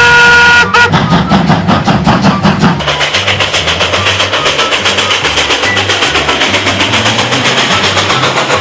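Steam locomotive whistle sounding a steady chord briefly, then the locomotive's fast, regular exhaust chuffs, about five a second, as it runs, over background music with a stepping bass line.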